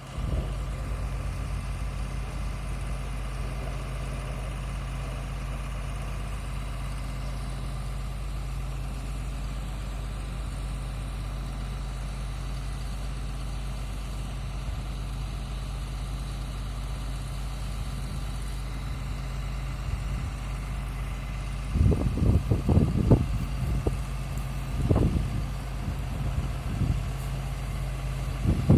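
Engine of a horizontal directional drilling rig idling steadily with a low hum. About three-quarters of the way through, irregular louder thumps and rumbles join in.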